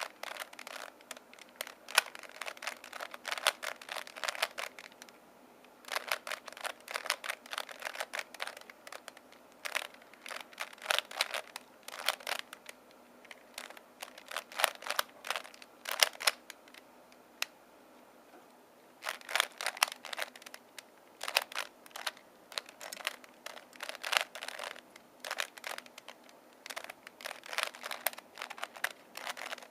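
Plastic ShengShou 3x3x3 speed cube being solved by hand: its layers turn in quick runs of clicking and rattling, broken by short pauses while the solver looks for the next moves.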